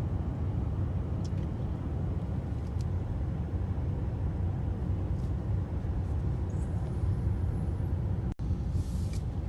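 Steady low rumble of a car's engine and tyres heard from inside the cabin while driving slowly on a highway, broken by a split-second dropout near the end.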